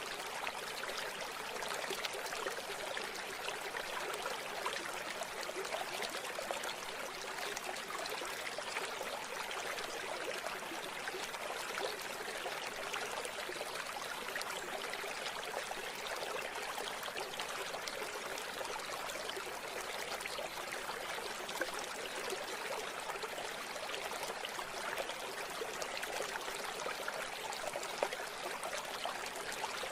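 River water flowing steadily: an unbroken, even rush of water, light and hissy, with little deep rumble.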